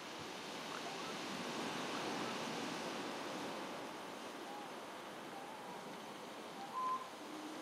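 Surf washing on the shore with some wind, the wash swelling about two seconds in. Near the end there is a brief high-pitched call.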